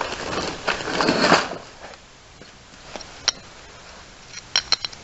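Handling noise as a worn mower-deck belt pulley is picked up: a rustling scrape for about the first second and a half, then a few light, sharp clicks, most of them near the end.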